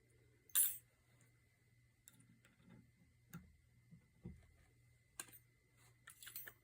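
Hook pick and tension wrench working the pins inside a Kwikset doorknob's pin-tumbler lock: faint, light metal ticks and scrapes, with one sharper click about half a second in. The lock is not yet open.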